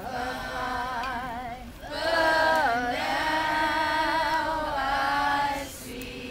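A small mixed choir of young voices singing a cappella in slow, long-held notes with vibrato. The singing grows louder about two seconds in and stops shortly before the end.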